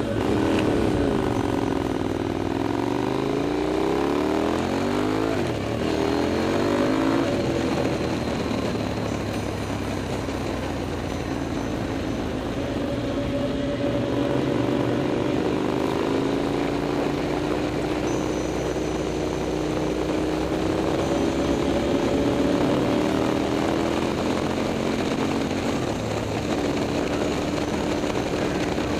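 KTM 990 SMT's V-twin engine through a LeoVince aftermarket exhaust, heard from on board while riding. It rises in pitch several times in the first seven seconds or so as the bike accelerates through the gears, then runs at a steadier pitch that slowly rises and falls.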